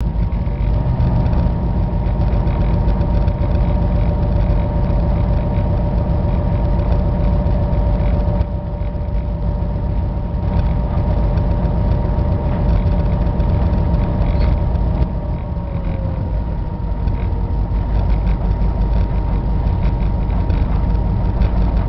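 Diesel locomotive engine running, heard from inside the cab: a loud, steady low rumble with a steady whine over it. About 15 s in, a second whine slides down in pitch and the overall sound eases a little.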